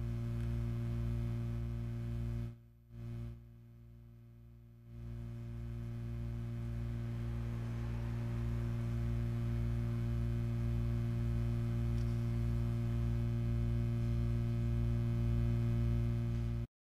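Deep, steady electric-sounding hum with a stack of even overtones and a slow throb beneath, made to imitate tinnitus. It drops away for about two seconds a few seconds in, swells back gradually, and cuts off suddenly just before the end.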